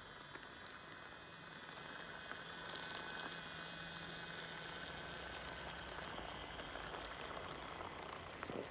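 Battery-powered wooden toy shinkansen train running on plastic track: a small electric motor's high whine with the wheels rolling and lightly clicking over the track joints. It swells as the train passes close and eases again, with a sharp click near the end.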